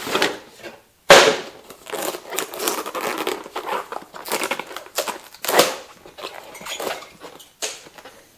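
A cardboard box being opened and a heavy-duty rubber motorcycle inner tube pulled out of it and handled: irregular rustling, crinkling and rubbing, with a sudden loud rip-like scrape about a second in.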